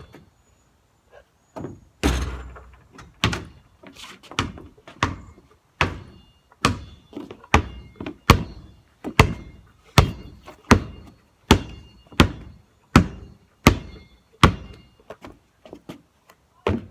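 Basketball being dribbled, bouncing on hard ground in a steady rhythm of roughly one bounce a second, starting about two seconds in.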